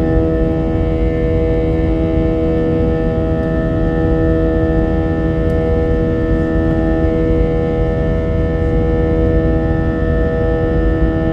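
Airliner jet engines heard from inside the cabin during takeoff: a steady low rumble with several steady whining tones over it, the strange sound of the title.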